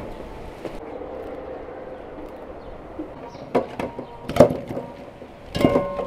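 Aluminium pot clanking against a metal sink: several sharp metallic knocks, each with a short ringing, in the second half, the loudest about four and a half seconds in.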